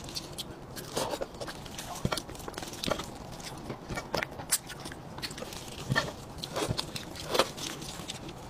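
Close-miked eating sounds from a braised sheep head: irregular wet smacks, clicks and sucking as the meat is pulled off the skull with plastic-gloved hands and chewed.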